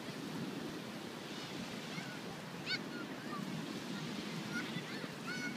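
Surf on the beach with wind buffeting the microphone in a steady low rumble, with a few faint, short voices calling in the distance.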